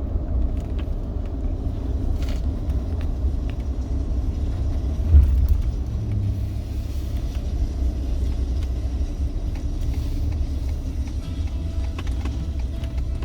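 Steady low rumble of a car cabin on the move, road and engine noise, with a brief louder thump about five seconds in.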